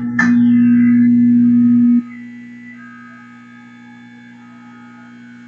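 End-screen music bed: a short whoosh, then a loud steady low hum-like drone that drops sharply to a much quieter sustained tone about two seconds in, with thin high tones held over it.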